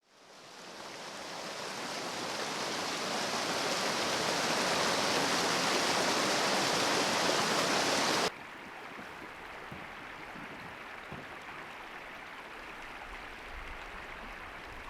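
Rushing river water running steadily, fading in at the start. About eight seconds in it drops abruptly to a quieter, steadier flow.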